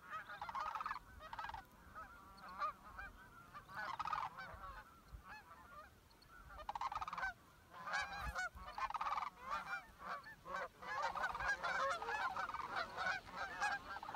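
A flock of sandhill cranes calling in flight: rolling, rattling calls repeated every second or two, which overlap into a near-continuous chorus over the last few seconds.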